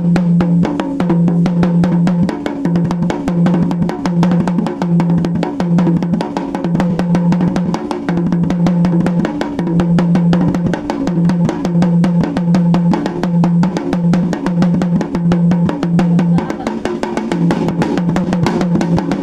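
Dholak played by hand in a fast, steady rhythm: a rapid run of slaps and taps, with a low ringing bass note sounding in repeated stretches. The playing stops suddenly at the end.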